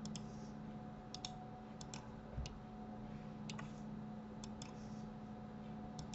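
Computer mouse buttons clicking a dozen or so times at irregular intervals, several clicks in quick pairs, over a steady low electrical hum.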